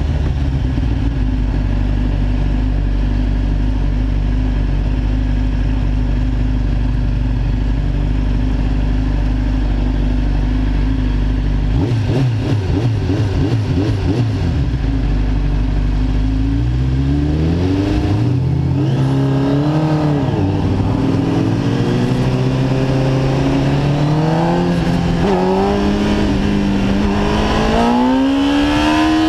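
2006 Kawasaki ZX-10R's inline-four engine running steadily at low revs while the bike comes to a stop, then accelerating hard from about sixteen seconds in, its pitch climbing and dropping back several times at the gear changes and rising steeply near the end.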